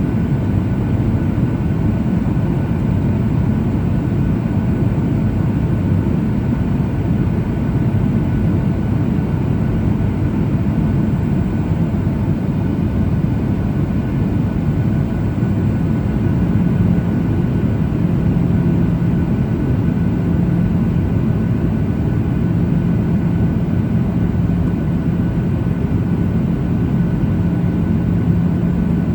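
Boeing 737-800 cabin noise in flight: the jet engines and rushing air make a steady low roar. A steady low hum joins over it about halfway through.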